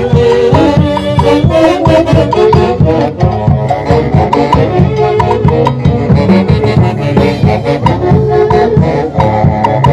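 Lively traditional band music: horns play a melody over a steady drum beat.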